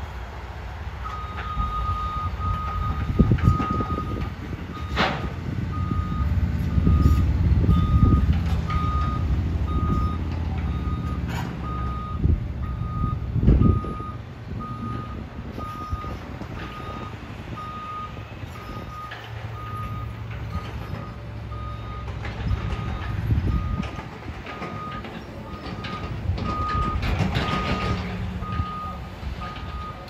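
A heavy-equipment reversing alarm beeping steadily at one pitch, starting about a second in, over the diesel rumble of excavators and an articulated dump truck working, which swells twice. A few heavy thuds stand out, the loudest about a third of the way in.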